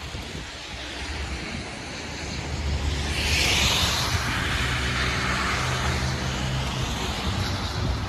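A vehicle driving past on a wet, slushy road: a low engine hum and tyre hiss that swell a couple of seconds in, with the hiss sliding lower as it goes by.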